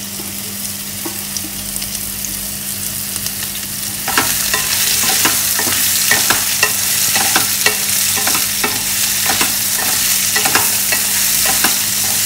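Diced raw mango sizzling in hot oil in a metal kadai as it is tipped in and sautéed. About four seconds in the sizzle gets louder and a wooden spatula stirs, scraping repeatedly against the pan.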